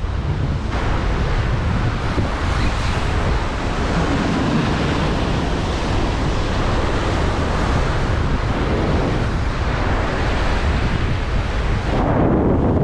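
Rough sea surf surging and washing over the rocks below, mixed with wind buffeting the microphone.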